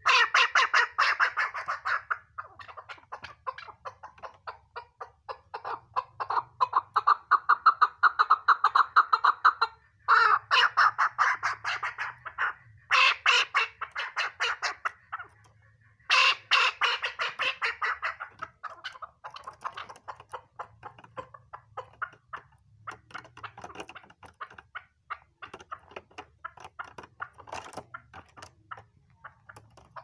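Chukar partridge calling: fast runs of clucking 'chuck' notes in bouts of a few seconds, loud through the first half and fainter and more scattered in the second half.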